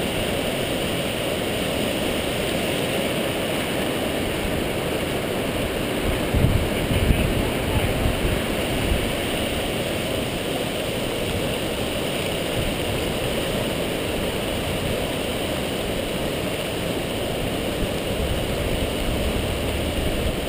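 Steady rush of floodwater from the swollen Boyne River pouring through. A brief low rumble rises about six to seven seconds in.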